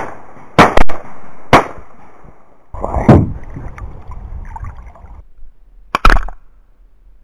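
Shotgun firing several sharp shots in the first couple of seconds. About three seconds in comes a spell of water splashing and churning as a hooked bass thrashes at the surface, and near the end there are two more shots close together.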